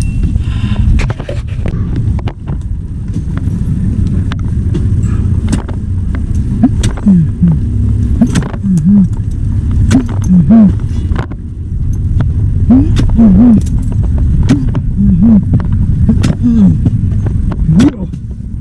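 Heavy diesel machinery running steadily, with irregular sharp metallic knocks and clinks throughout.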